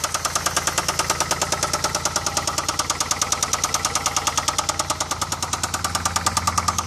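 2002 Pontiac Bonneville SE's 3800 V6 running with a rapid, even knock over the steady engine hum, which the owner takes for a slight rod knock.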